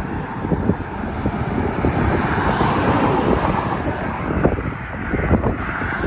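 Highway traffic passing on the road beside the walkway: a swell of tyre and engine noise that builds and peaks about two to three seconds in. Wind buffets the microphone throughout.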